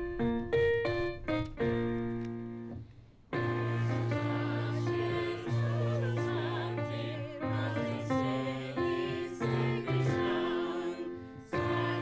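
A hymn with keyboard accompaniment: a keyboard plays separate held notes that fade into a short pause about three seconds in. Then a group of voices starts singing along with the keyboard.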